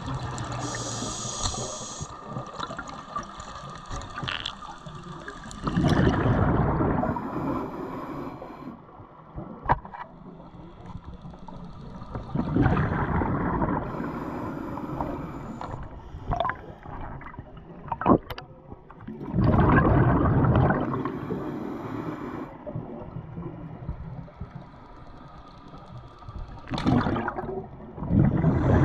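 Scuba diver breathing through a regulator, heard underwater. Exhaled bubbles gush out loudly four times, about every seven seconds, with a quieter hiss and a few sharp clicks in between.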